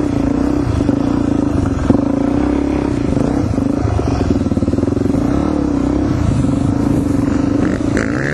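Suzuki DR-Z400E's single-cylinder four-stroke engine running steadily at low revs, close to the helmet microphone, with one brief knock about two seconds in.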